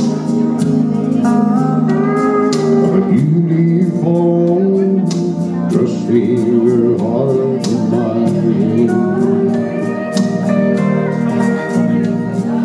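Instrumental break of a country song: a lead melody with sliding, gliding notes over steady bass and a regular drum beat.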